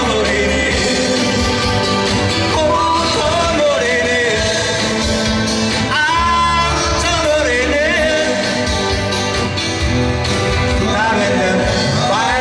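Live song: a singer's voice carries a melody with wavering held notes over strummed acoustic and electric guitar accompaniment.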